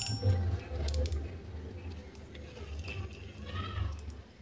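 Shikari Valino 1000 spinning reel being handled: a few light clicks about a second in, then the handle is cranked and the rotor spins with a short rising whir near the end.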